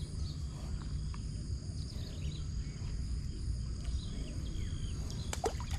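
Riverside ambience: insects trilling steadily at a high pitch, with a few faint short bird chirps and a low steady rumble underneath.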